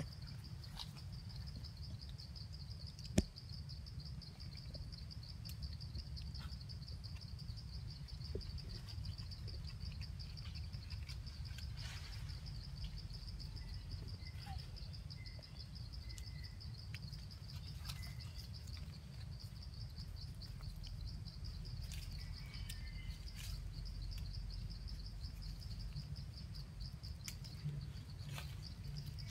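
Steady, high-pitched insect buzz that pulses rapidly without a break, over a low rumble, with a single sharp click about three seconds in.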